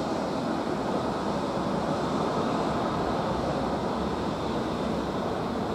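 Steady rushing jet noise from a taxiing Boeing 787's engines at low taxi power, mixed with wind buffeting the microphone.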